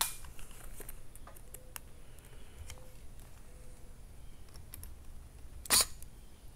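Faint clicks and light rattles of plastic RC chassis parts and screws being handled, with one short loud burst about five and a half seconds in.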